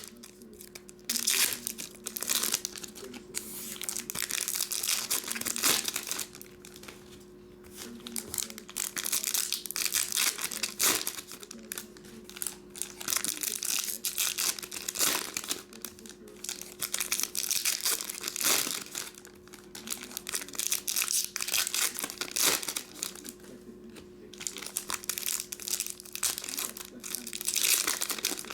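Foil card-pack wrappers and packaging crinkling and tearing open in irregular bursts, some long and some sharp, over a faint steady electrical hum.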